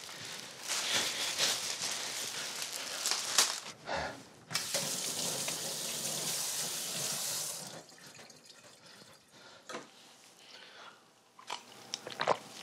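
Kitchen tap running into a sink while hands are washed under it, a steady rush of water that stops about eight seconds in. A few faint knocks follow.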